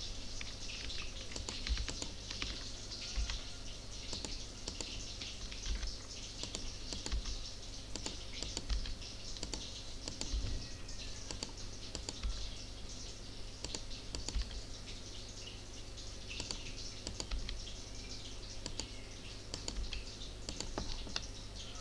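Irregular clicking of a computer keyboard and mouse as a mesh is edited in Blender, over a steady low hum and hiss.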